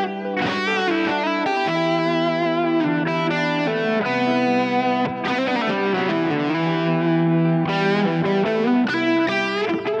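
Stratocaster-style electric guitar playing an improvised lead solo, with wavering vibrato notes, over low notes held for seconds at a time.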